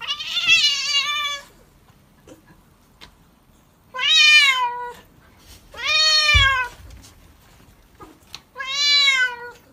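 A cat meowing loudly in protest at being held for a bath: four long, drawn-out meows a few seconds apart, each rising and then falling in pitch.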